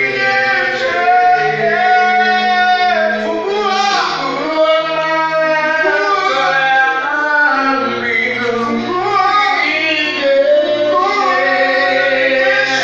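Gospel worship song: voices singing long held notes over instrumental backing with a steady low bass line.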